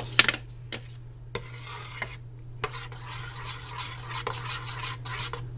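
Metal spoon stirring a thick, creamy soup in a stainless steel saucepan, scraping the bottom and clicking against the side of the pan now and then.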